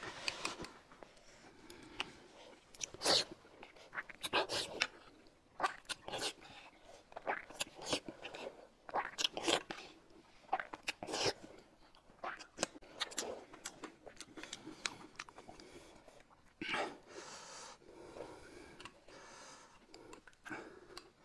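Close-up eating sounds: irregular chewing, smacking and slurping, with short clicks of chopsticks and spoons against bowls and a glass mug.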